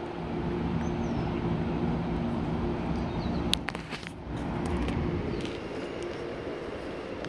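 A vehicle's steady low hum over outdoor traffic noise, easing off about four seconds in, with a single sharp click just before.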